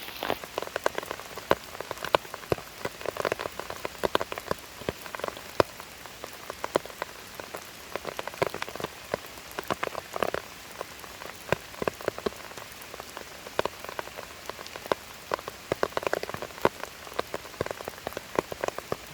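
Rain falling steadily, with many separate raindrops landing close by as an irregular patter of ticks, some louder than others.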